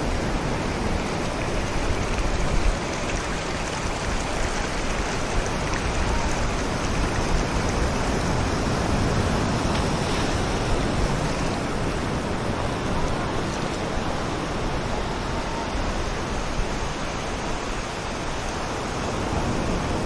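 Shallow beach surf washing in over the sand: a steady rushing of small waves.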